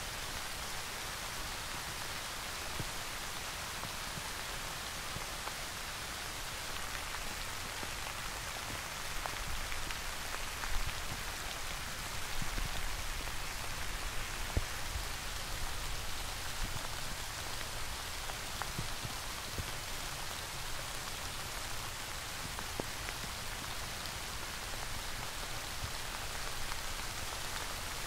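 Steady rain falling, an even hiss with individual drops ticking through it and a few louder drop hits around the middle.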